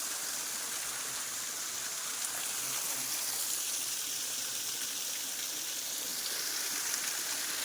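Waterfall splashing, a steady rush of falling water and droplets.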